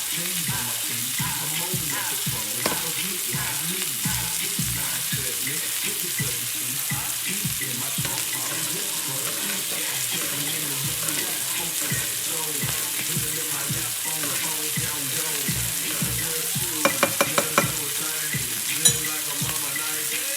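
Chicken breasts frying in a pan, a steady sizzle. About 17 seconds in there is a quick run of five sharp clicks, and one more a couple of seconds later.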